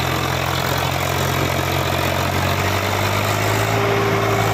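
Swaraj 744 tractor's three-cylinder diesel engine working hard as it pulls a fully loaded trolley up a slope, front wheels lifted off the ground. Its note drops a little about two and a half seconds in as the engine pulls down under the load.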